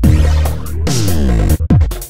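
Electronic music with a heavy bass line and sliding pitch sweeps, dropping out sharply for an instant a couple of times.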